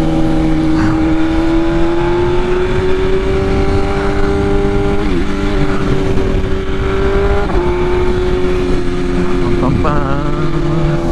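BMW S1000RR inline-four engine running at high, steady revs. Its pitch creeps up over the first seven seconds, with a brief dip about five seconds in and a small drop near seven and a half seconds.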